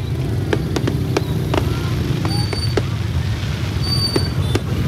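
Fireworks cracking in irregular sharp pops over the steady low rumble of many motorbike engines, with crowd voices chatting.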